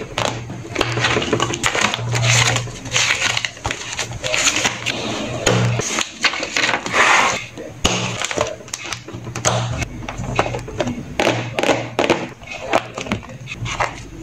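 Close-up handling of a clear plastic ring-binder journal, its paper pages and plastic sticker sheets: irregular crinkling of plastic and paper with many sharp taps and clicks.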